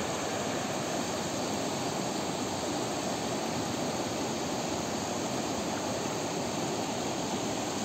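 A shallow river rushing over a stony bed, a steady, even noise of running water.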